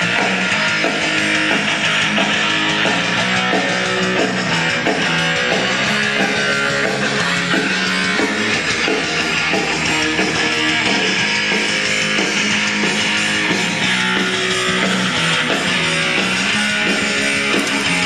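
Guitar-led music with plucked and strummed guitar, playing steadily at an even level. It is played back from a cassette on a Bang & Olufsen Beocord 5500 cassette deck.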